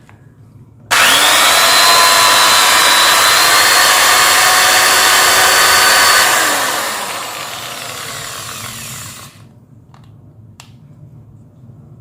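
Corded 10 mm electric pistol-grip drill (BUILDSKILL BED1100) switched on about a second in, its motor running at full speed with a steady whine. From about six seconds it winds down gradually and stops about three seconds later, followed by a few light clicks.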